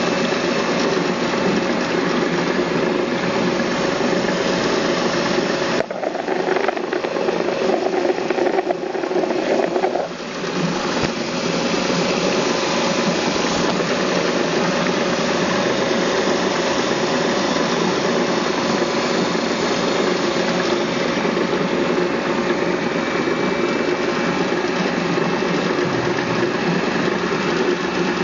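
A grinding or sanding machine's motor running steadily under load. About six seconds in its tone shifts for a few seconds, then it dips briefly and settles back to its steady run.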